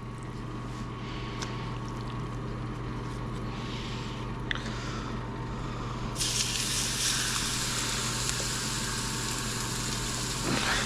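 A steady low hum with a few light clicks, then about six seconds in a loud sizzle starts suddenly and keeps going, as marinated thin steak goes into the preheated oil.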